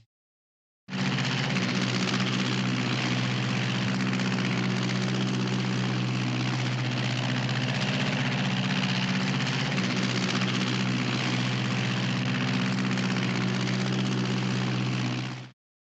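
A steady, engine-like mechanical drone that starts about a second in, holds an even low hum with a noisy top, and cuts off just before the end.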